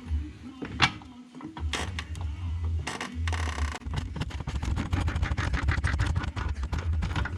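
A car jack being worked to lift a small car: metal knocks and a short rasp, then a fast, even run of ratcheting clicks from about four seconds in, over a low rumble.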